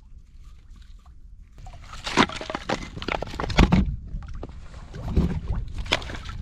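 Split firewood logs clattering and knocking together as they are handled and stacked by hand, a run of sharp wooden knocks starting about a second and a half in and another cluster near the end, over a low wind rumble on the microphone.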